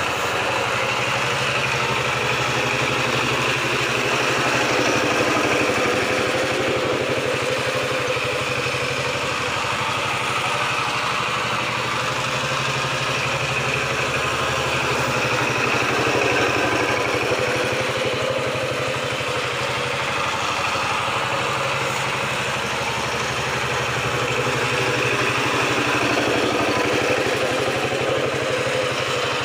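KAMCO power tiller's single-cylinder diesel engine running steadily as the walking tractor is driven over spread straw. Its loudness swells and eases gently a few times.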